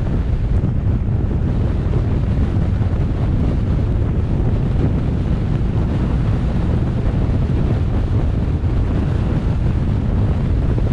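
Steady low rumble of wind and road noise from a car driving along, with no changes or distinct events.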